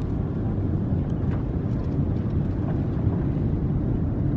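Steady low rumble of airliner cabin noise, engine and rolling noise heard from inside the cabin as the plane moves along the ground.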